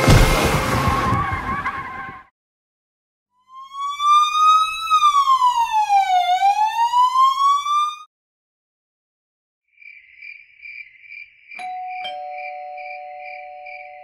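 A loud crash with a ringing tail, then after a short silence an emergency-vehicle siren wailing up, down and up again for about four seconds. Near the end, crickets chirp in a steady pulse, and after a click a low steady tone joins them.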